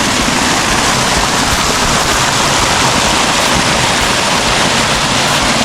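Water from a small river flowing across a road, a steady rushing close by.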